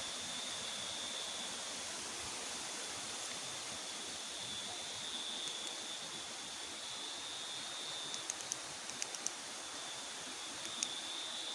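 River water running steadily, with a constant high-pitched whine over it. A handful of sharp ticks come near the end.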